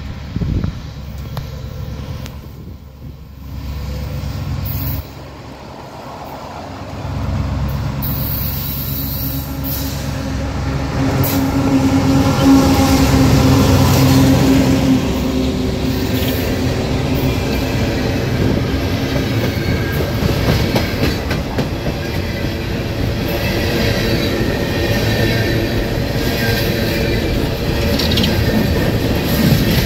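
CSX freight train running past close by. The diesel locomotives' engines come up and are loudest about 12 to 15 seconds in, then a long string of open-top hopper cars rolls by with steady wheel-on-rail noise and a faint high squeal of wheels.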